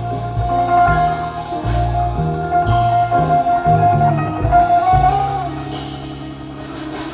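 Recorded music with a plucked guitar melody, a bass line and drums, played on a hi-fi system through Tannoy Stirling loudspeakers. It eases off a little over the last two seconds.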